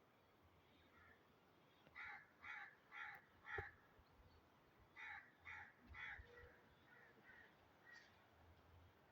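An animal calling: seven short, harsh calls in two runs, four and then three, about two calls a second.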